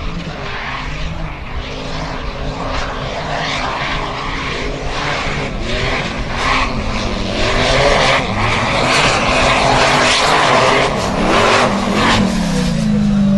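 Off-road racing buggy's engine revving hard, its pitch rising and falling again and again as it drives through mud. Near the end the revs drop away.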